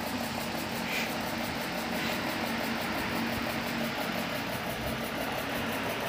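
Steady mechanical hum with a constant hiss from a running machine, with one faint short high sound about a second in.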